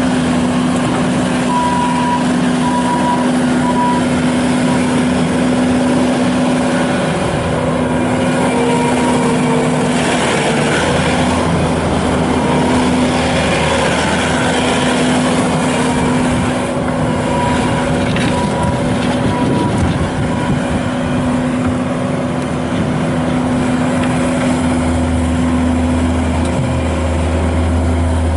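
2016 Bobcat S750 skid steer loader's diesel engine running steadily, with the sound growing busier and rougher between about ten and twenty seconds in.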